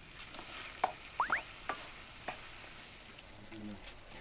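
Sliced peppers, onion and tomato frying in a pan while a wooden spatula stirs them, with a few light knocks of the spatula against the pan and a short rising squeak about a second in.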